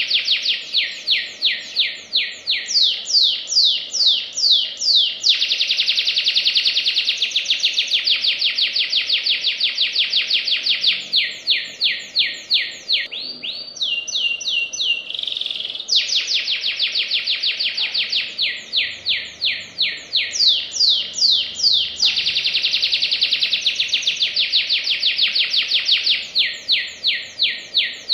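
Domestic canary singing a loud, fast song without a break: dense rapid trills alternating with runs of quick downward-sweeping notes, about four a second, with a short steady held phrase about halfway through.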